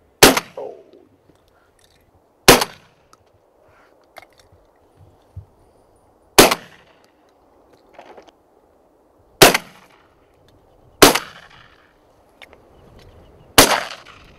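Six shotgun shots fired at incoming pigeons with Eley VIP Steel 32 g No. 5 steel-shot cartridges. The shots are unevenly spaced, each a sharp report that dies away quickly.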